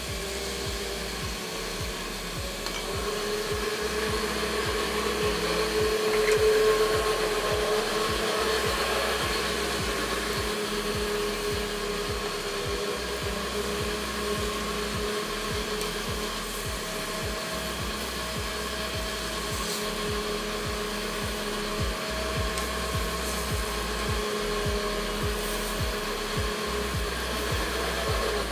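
Electric blender running steadily for the whole stretch, a continuous motor whir whose pitch wavers slightly, blending a salsa.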